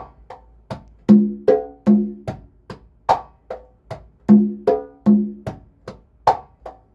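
A pair of congas played by hand in the bachata derecho pattern: soft heel and fingertip strokes and a sharp slap, then open tones on the low, high and low drum. The pattern repeats about every three seconds.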